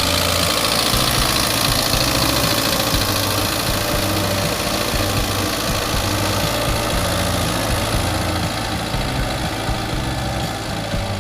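Belarus 510 tractor's diesel engine running steadily while pulling a five-furrow plough, getting slightly quieter near the end.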